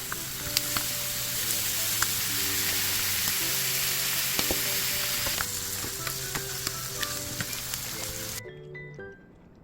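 Food sizzling as it fries in a hot pan, with a few light clicks, until the sizzle cuts off suddenly about eight seconds in.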